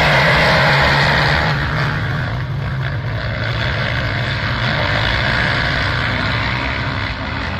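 Racing ATV (quad bike) engines of a whole pack at full throttle, a loud dense mass of engine noise. It drops a little about a second and a half in as the pack moves away into the first corner.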